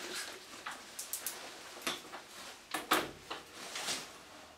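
The steel chain of a bench-mounted chain vise rattling and clinking as it is wrapped around a plastic pipe and hooked into the vise jaw: an irregular string of short clinks and knocks.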